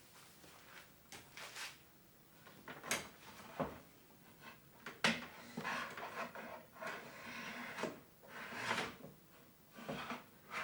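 A wooden display drawer being handled and fixed to its side rails: scattered knocks and clicks with stretches of rubbing and sliding as the parts are worked and screwed together.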